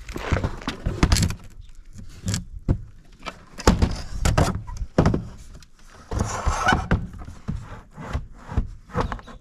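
Irregular knocks and thumps of a wooden skylight frame being handled and worked into place in a shed roof, with a stretch of scraping a little after the middle.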